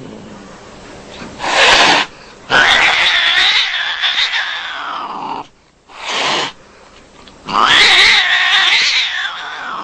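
A cat caterwauling: two long, wavering yowls, each preceded by a short harsh burst.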